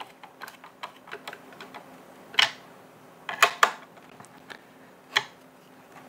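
A screwdriver driving screws into a blower's plastic housing, with small irregular clicks and ticks from the screwdriver and plastic parts. Sharper clicks come about two and a half seconds in, twice around three and a half seconds, and once near five seconds.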